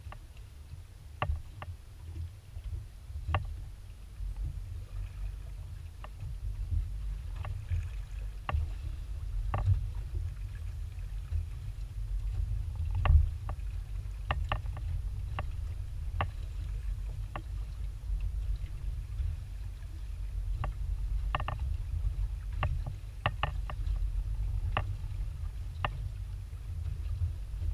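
Small waves slapping against the hull of an aluminium dinghy in short, irregular knocks and clicks, over a steady low rumble.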